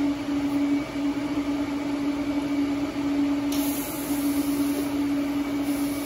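Steady machine hum with one low, unchanging tone, with a higher hiss joining about three and a half seconds in.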